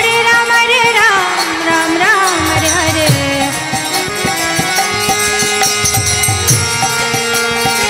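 Devotional kirtan music: a voice singing over sustained tones, with a steady beat of hand percussion.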